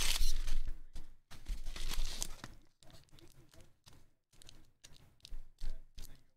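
Yellow padded paper envelope being ripped open, a loud tearing and crinkling for about the first two and a half seconds. Then softer, intermittent rustling of a clear plastic card sleeve being handled.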